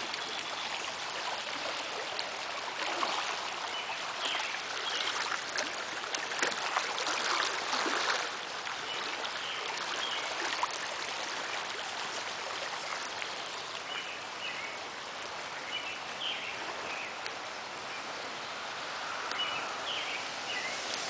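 Muddy floodwater rushing fast down a small creek swollen by a storm and spilling over its grassy banks: a steady rush of running water, louder for a few seconds near the start before easing.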